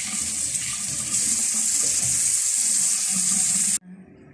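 Water running steadily from a tap into a sink, stopping abruptly near the end.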